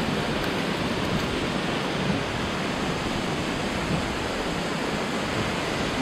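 Steady rush of several thin waterfalls pouring into a pool.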